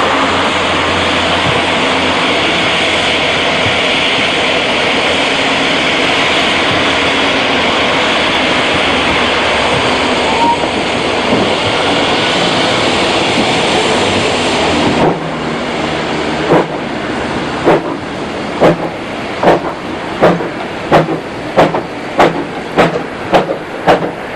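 Zillertalbahn narrow-gauge steam locomotive hissing steadily with escaping steam, which stops about fifteen seconds in. The locomotive then starts away, its exhaust chuffs quickening from about one a second to two a second as the train gathers speed.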